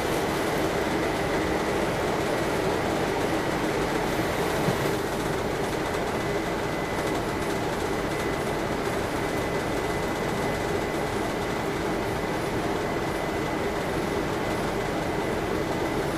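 City bus idling, heard from inside the passenger cabin: a steady rumble with a thin, steady whine running through it.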